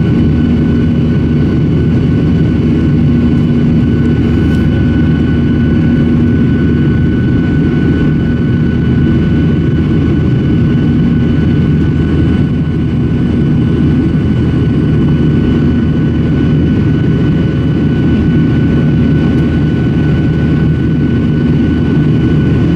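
Cabin noise of a Boeing 737-900 in its climb after takeoff: the CFM56-7B turbofan engines running steadily at climb power, a loud low rumble with a steady hum and thin whining tones above it.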